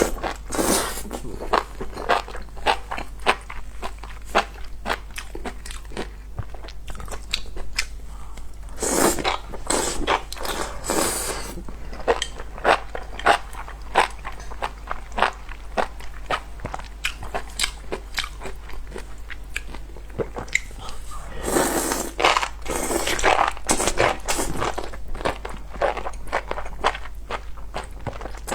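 Close-miked eating of spicy enoki mushrooms: a steady run of wet bites, crunches and chewing, with two longer noisy stretches about nine and twenty-two seconds in.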